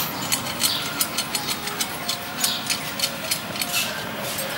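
Steel wire spokes clicking and ticking against each other and the hub as they are threaded into a motorcycle wheel hub during wheel lacing: many light, irregular metallic clicks over a steady background hum.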